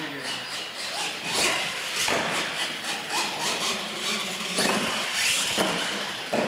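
R/C monster truck running on a concrete floor: motor and tyre noise, broken by several sharp thuds and clatters as it hits and lands off wooden ramps.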